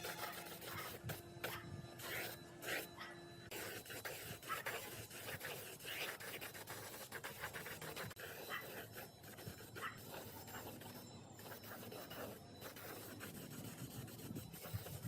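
Irregular rubbing and scraping with many scattered clicks and knocks, and a faint steady hum that stops about three and a half seconds in.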